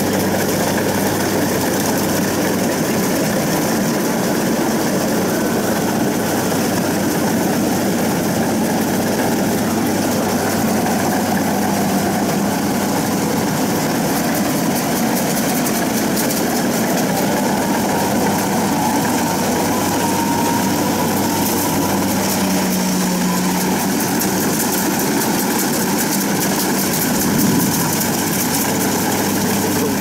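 Kubota DC70 combine harvester's diesel engine running steadily, a constant low hum over machinery noise.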